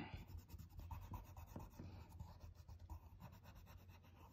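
Faint scratching of a colored pencil on paper, in quick repeated strokes as an area of the drawing is colored in.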